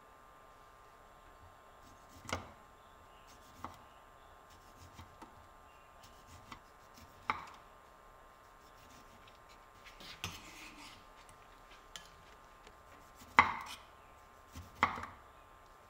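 About six light knocks and taps at irregular intervals, a second or more apart, the sharpest near the end, over a faint steady hum.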